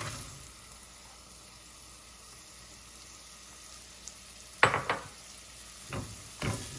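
Raw green mango pieces sizzling steadily in hot coconut oil and spices in a pan. A few sharp knocks and scrapes of a utensil against the pan come just under five seconds in and again near the end.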